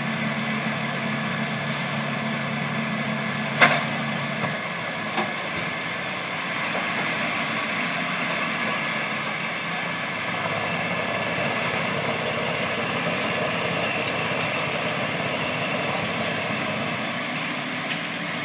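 Valtra T193H tractor's six-cylinder diesel running with a McHale V660 round baler in tow. A sharp clank comes about three and a half seconds in. Soon after, the low steady hum of the baler's drive drops away as the tailgate opens and a bale is discharged, and a lighter knock follows. The tractor engine keeps running steadily after that.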